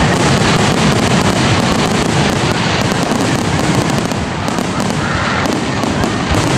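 Aerial fireworks shells bursting in rapid succession: a loud, unbroken barrage of bangs.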